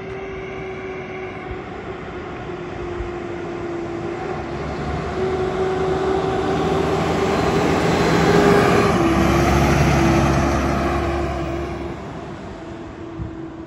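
Fire engine driving past: a steady whine and the diesel engine's rumble grow louder. The whine drops slightly in pitch as the truck goes by about nine seconds in, then fades as it moves away.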